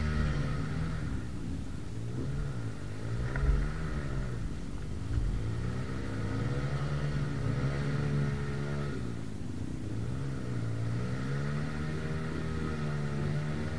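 Dirt bike engines idling and being revved, their pitch rising and falling again and again.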